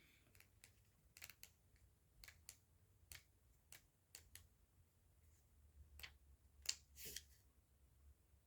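Near silence: room tone with a dozen or so faint, scattered clicks and light taps, the loudest a few around six to seven seconds in.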